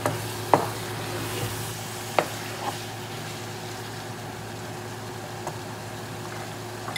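Spiced ground beef with tomato and onion sizzling in a frying pan while it is stirred with a spatula, with two sharp knocks against the pan about half a second and two seconds in.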